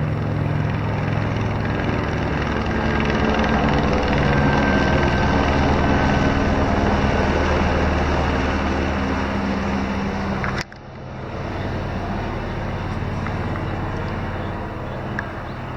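Helicopter flying low overhead: steady rotor and engine noise that builds to its loudest about halfway through as it passes. About two-thirds of the way in the level drops suddenly and the rotor noise carries on more faintly.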